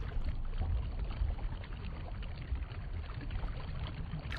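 Underwater stream ambience from a nature film's soundtrack: an even rushing noise with a heavy low rumble, dulled by being played back and re-recorded.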